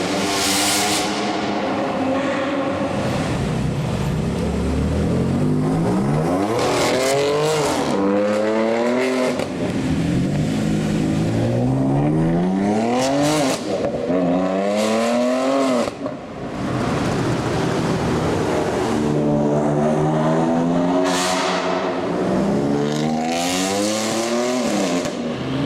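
Hamann-tuned BMW M4's twin-turbo straight-six, through an aftermarket sports exhaust, accelerating hard several times over. The pitch climbs through each run and drops back between them.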